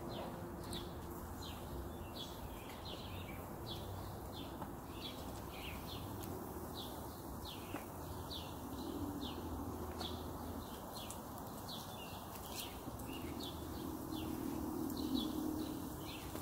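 A bird chirping over and over, short falling chirps at about two a second, over a steady background hiss.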